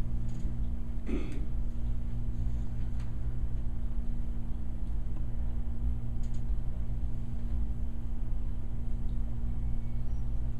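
Steady low hum of room background noise, with a brief faint sound about a second in and a couple of faint clicks about six seconds in.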